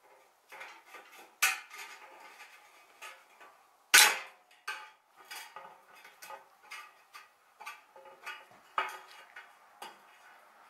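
Metallic clinks, taps and scrapes of hand tools, a screwdriver and a metal hand tool, working a piece of sheet-metal roof ridge cap, in an irregular run of sharp clicks with one loud clank about four seconds in.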